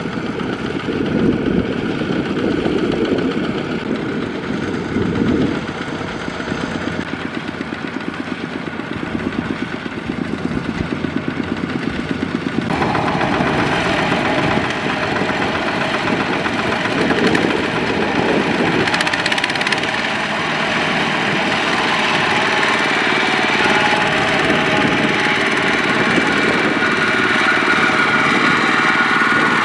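Kubota ZT140 single-cylinder diesel engine of a two-wheel walking tractor, running with a fast, steady chug while it pulls a trailer loaded with rice sacks through sticky mud. About 13 seconds in the sound turns abruptly louder and brighter.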